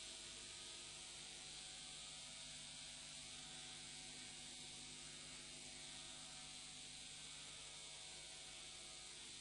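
Near silence: a faint, steady hiss with a low electrical hum in the recording.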